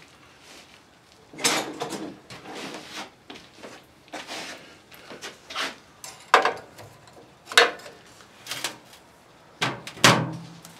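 Someone rummaging and handling things at a workbench: a string of irregular knocks and clatters, about nine in all, with the sharpest near the end.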